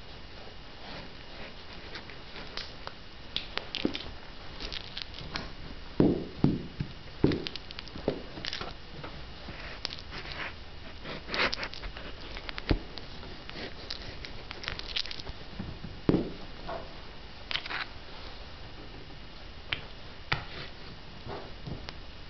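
A leather cowboy boot stomping and grinding a squashed tube of cream on a tiled floor: irregular squelching and crackling, with a few heavier heel thumps about six, seven and sixteen seconds in.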